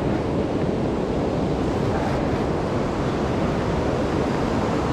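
Steady rush of river water and water pouring over a dam spillway, mixed with wind on the microphone.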